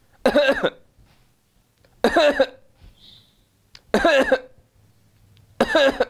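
A man deliberately imitating a cough that comes in two paroxysms: four short coughing bursts about two seconds apart, with quiet gaps between them.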